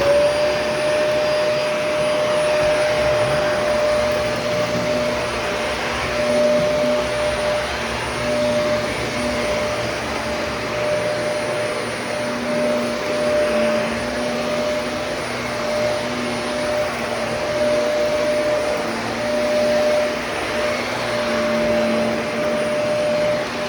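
Vacuum cleaner switched on and running: the motor starts at once and holds a steady whine over a rushing hum, its loudness wavering a little as it is worked.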